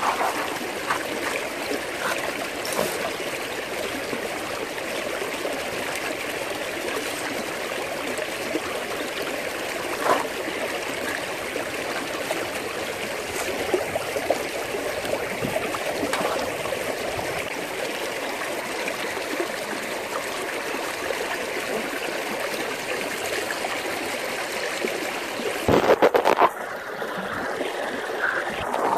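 Creek water rushing and splashing steadily through a metal gold-panning sluice box. A few louder knocks come briefly near the end.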